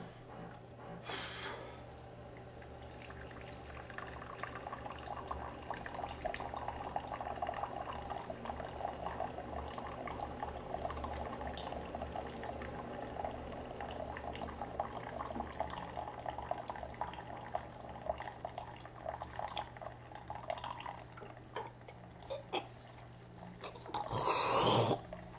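A person drinking liquid from a large bowl in one long draught, then a loud choking noise near the end.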